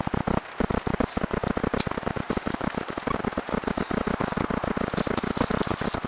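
Collared peccary (javelina) drinking from a water bowl: a rapid, irregular run of lapping smacks, many a second, which thins out near the end.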